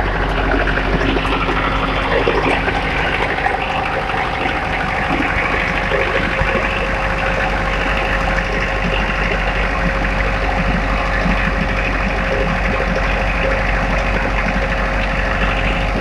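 Diesel engine of a mobile wood chipper running steadily, with a faint steady whine over it.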